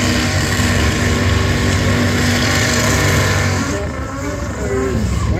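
Drag car doing a burnout: its engine is held at steady high revs while the rear tyres spin and screech. The tyre noise and held revs cut off about four seconds in, and the engine revs then fall and blip.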